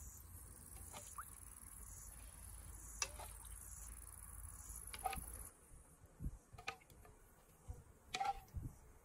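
Faint scattered light clicks and taps over a steady high hiss that cuts off abruptly about halfway through.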